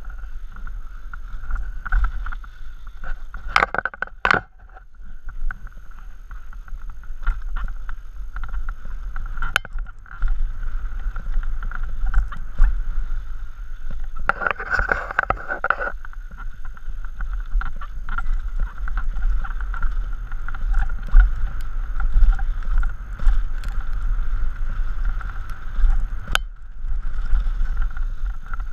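Mountain bike coasting down a rocky dirt trail, heard from a helmet-mounted camera: a steady low rumble of wind on the microphone and tyres on dirt, a constant high buzz, and frequent knocks and rattles as the bike hits rocks, loudest about 4 seconds in and again around 15 seconds.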